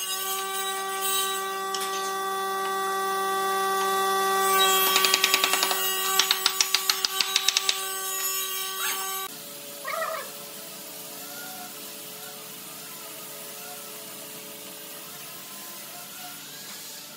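Wooden mallet tapping a pine bed-frame rail in two quick runs of light blows, about five to eight strikes each, over a steady hum. After a sudden cut about nine seconds in, a cat gives a short meow and the sound goes quieter.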